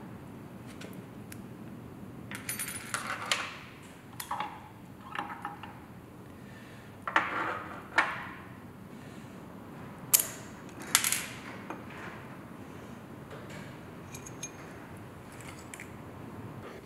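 Steel gearbox parts (straight-cut gears, synchro rings, a bearing) clinking and knocking against each other and a steel fixture table as they are handled. Irregular clinks come every second or two, the sharpest about ten seconds in.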